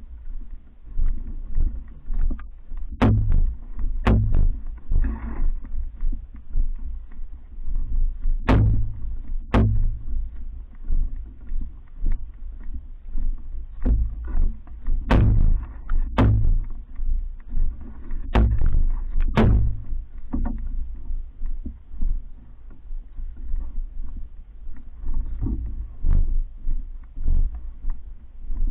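Paddling a Hornbeck New Trick pack canoe: rhythmic strokes and water sloshing against the hull over a steady low rumble. Sharp knocks on the boat recur, often in pairs about a second apart.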